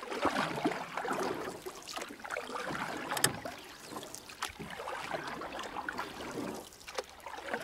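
Water splashing and gurgling, with many small irregular clicks and knocks.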